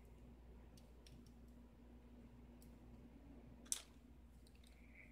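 Faint small metal clicks of tweezers, pins and springs as a 5-pin Euro cylinder lock is loaded by hand, with one sharp click about three-quarters of the way through.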